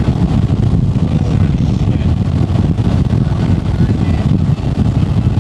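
Strong wind near a tornado buffeting the microphone: a loud, steady low rumble.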